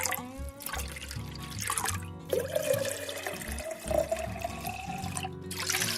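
Background music with a steady bass line, over running water.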